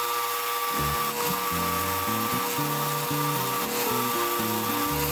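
Power wire wheel running steadily, with a constant motor whine and a hiss, for wire-brushing rust off a pair of pliers. Background music with a moving bass line comes in about a second in.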